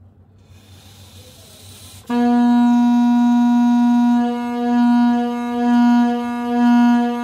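Homemade balloon horn, an inflated balloon on a plastic pipe, sounding one steady horn-like note as the balloon's air escapes, starting about two seconds in. The note swells and dips about once a second as the pipe is swung toward and away from the microphone, the Doppler effect being shown.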